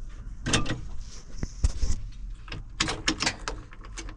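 A run of short, sharp clicks and knocks, several of them bunched together in the second half, from controls and parts being handled in a tractor cab.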